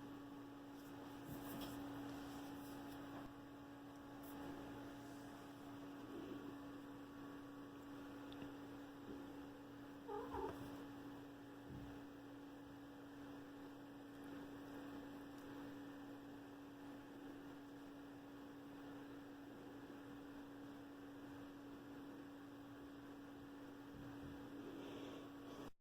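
Faint steady hum throughout, with a few soft clicks and a brief louder sound about ten seconds in.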